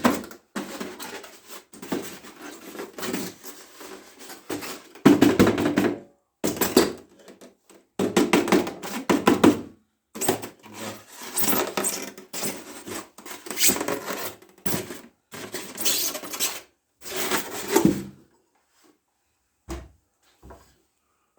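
Unpacking noise: packaging rustling in irregular bursts, with parts of a sanding machine being handled and knocked together. It goes quiet after about 18 seconds, apart from a couple of brief knocks.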